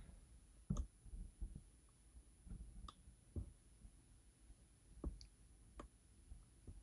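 Faint, scattered clicks of a lock pick probing and lifting pins inside a Goal D9 lock held under tension, about eight irregular ticks.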